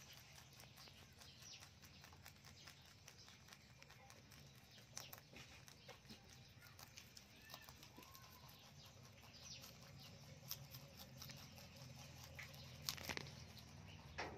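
Rabbits chewing fresh leafy green stems: faint, quick crunching clicks, with a few louder crunches about five seconds in and near the end.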